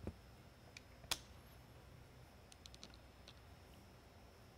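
Faint, scattered clicks and ticks of small plastic lighthead parts being handled during reassembly: one sharper click about a second in, then a quick run of light ticks a little later.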